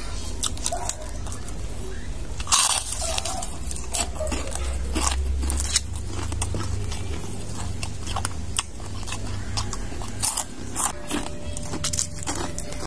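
Crisp deep-fried pork intestine (chicharon bulaklak) being bitten and chewed close to the microphone: irregular loud crunches and crackles over a steady low hum.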